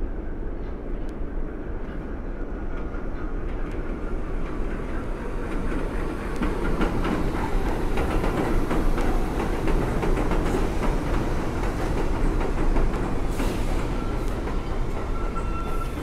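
Subway train running along an elevated track: a steady rumble with rapid clatter of wheels over rail joints, growing louder towards the middle. A thin wheel squeal starts near the end.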